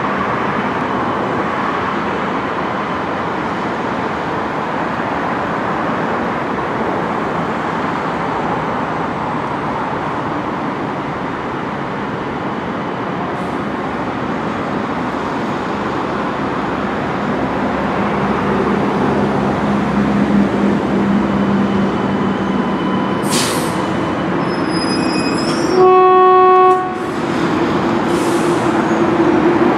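CSR Puzhen metro train moving slowly through a rail depot over a steady background rumble. A low motor hum builds from about halfway. Near the end comes a single train horn blast of about a second, one steady tone and the loudest sound.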